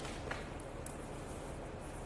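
Quiet, steady room tone and hiss, with a faint tick about a third of a second in and another brief faint sound near a second in.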